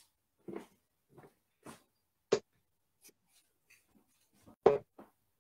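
Darts thudding into a bristle dartboard: a handful of short, sharp knocks, the two loudest a little over two seconds in and near the end, with fainter taps between.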